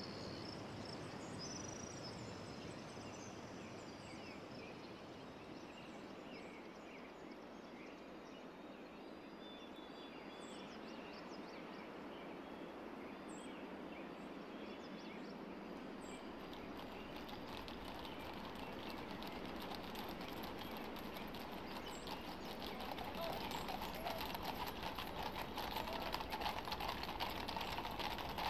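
Outdoor ambience with a steady hiss and scattered short bird chirps. In the last few seconds, horses' hooves clopping on a paved road fade in and grow louder.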